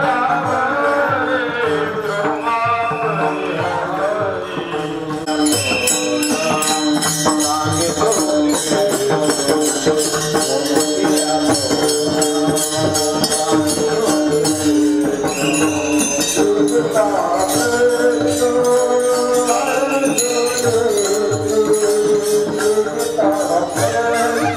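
Devotional bhajan singing over a steady, held accompaniment. About five seconds in, jingling hand percussion joins and keeps a steady beat.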